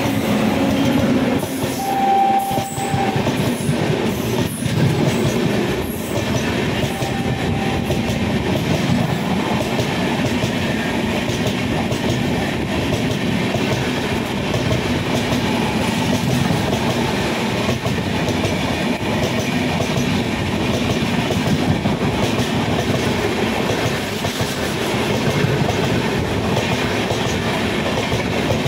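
Mewar Express passenger train running at speed, a steady rumble of coaches with the clickety-clack of wheels on the rails. A short high tone sounds about two seconds in.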